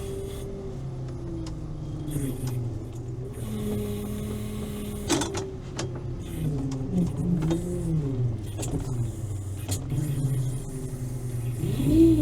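Engine of the Veter 6x6 all-terrain vehicle running while it drives, holding steady at first, then revving up and down repeatedly in the second half. There is a single knock about five seconds in.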